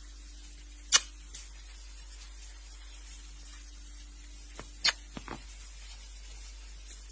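A few sharp clicks over a steady background hum: one loud click about a second in, then a cluster of clicks almost five seconds in.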